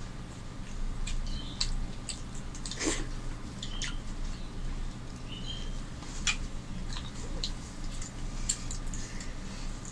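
Two people eating rice and fish curry with their hands: scattered short chewing and lip-smacking clicks and fingers mixing rice on plates, over a low steady hum.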